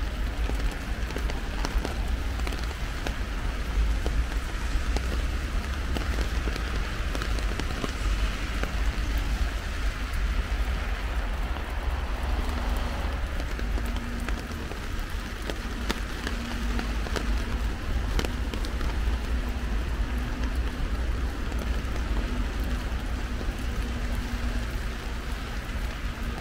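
Heavy rain pattering on an umbrella, many drops ticking at once over a steady low rumble.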